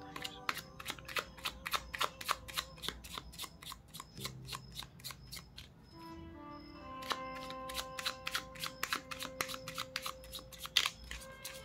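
A deck of tarot cards being shuffled by hand in an overhand shuffle: a fast run of crisp card slaps that thins out around the middle, then picks up again. Soft background music with long held tones plays underneath.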